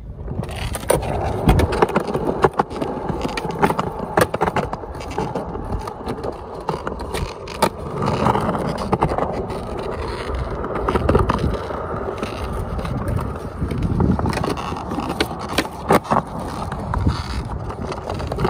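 Skateboard wheels rolling over rough, cracked concrete, a continuous grinding rumble broken by many sharp clacks. A handful of the clacks, scattered through, are clearly louder than the rest.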